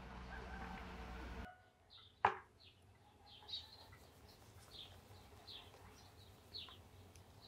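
Small bird chirping repeatedly, short high chirps coming about once a second. A sharp click sounds about two seconds in. Before that, a steady rushing background cuts off suddenly after about a second and a half.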